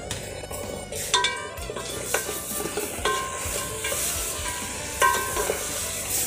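Pork pieces frying and sizzling in an aluminium pot while a wooden spatula stirs them, scraping and knocking against the side of the pot several times.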